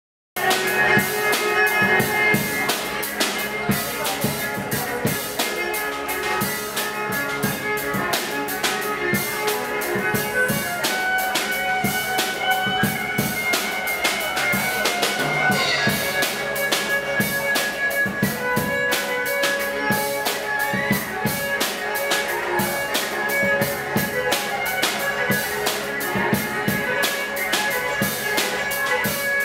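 Live music: a bowed violin playing long, held notes over a steady drum beat.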